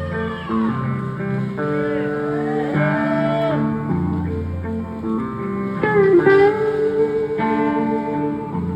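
A rock band playing live through a PA in an instrumental intro. Electric guitars hold chords while a lead guitar bends and slides notes over a bass line.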